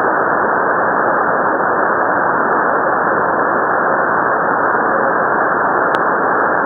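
Steady loud static hiss from a CB radio receiver tuned to lower sideband, with no station transmitting, and a single brief click about six seconds in.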